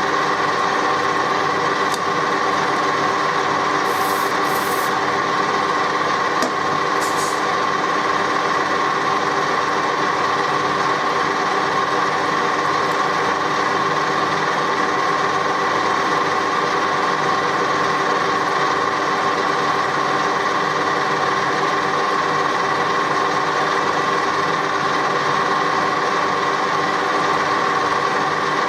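Machine drill running steadily as it bores a 3 mm hole into hard metal, a constant hum with no change in speed, with a few faint high ticks a few seconds in.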